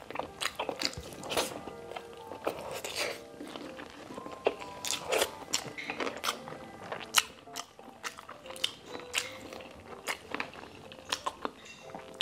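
Close-miked chewing and biting of stewed pork trotters and rice eaten by hand, with many sharp, irregular clicks from the mouth. Soft background music runs underneath.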